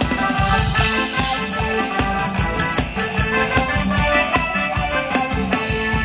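Live band playing Thai ramwong dance music, amplified through stage speakers: an instrumental passage with sustained melody and a steady drum beat, no singing.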